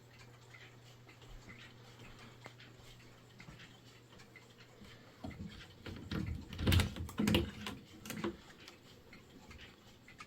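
Ridgeway triple-chime grandfather clock ticking steadily and faintly. A few louder knocks or thumps come about five to eight seconds in.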